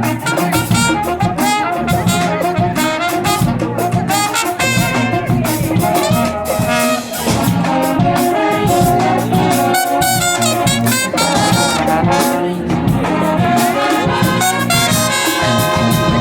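Brass band playing live: trumpets and trombones carry the tune over a steady drum beat.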